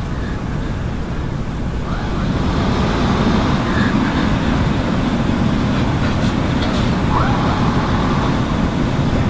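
Steady outdoor background noise like distant road traffic, which gets louder about two seconds in.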